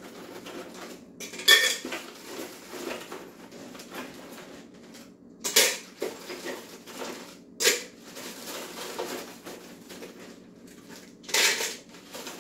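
Containers and other items being shifted about on the shelves of an open refrigerator: quiet rustling and knocking, broken by four sharper clatters, the first with a brief ring like glass or hard plastic.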